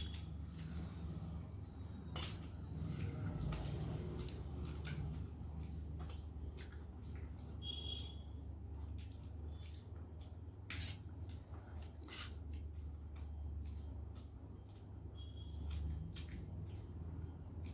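People eating pasta and papaya: scattered clicks of cutlery against plates and soft wet eating sounds, over a steady low hum. A few brief high chirps come through now and then.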